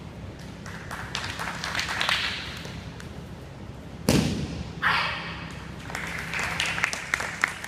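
A heavy thud about four seconds in as a body is thrown down onto the wrestling mat, followed by softer thumps and taps of bodies moving on the mat.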